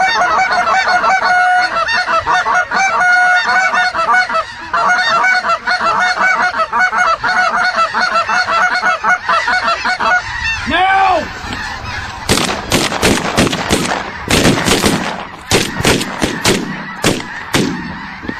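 Goose honking and clucking in a fast, even run for about ten seconds, then one drawn-out call that rises and falls, then a looser run of harsher honks.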